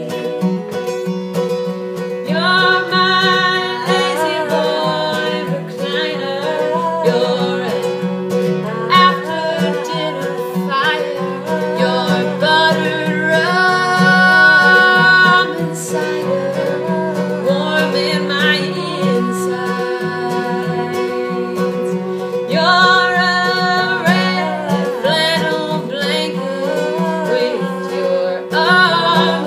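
Two women singing a song to an acoustic guitar.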